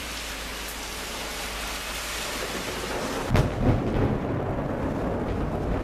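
Steady hiss of heavy rain, then a close thunderclap a little past halfway: a sudden sharp crack followed by a deep rumble that carries on.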